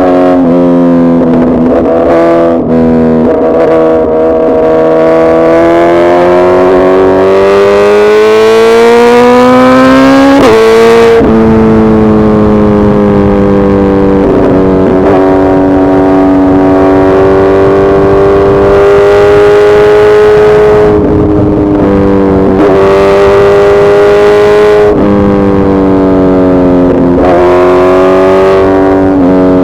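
Suzuki Hayabusa Gen3's inline-four engine running hard: the revs climb steadily for about ten seconds, fall sharply, then hold fairly level, with a few brief dips and rises near the end.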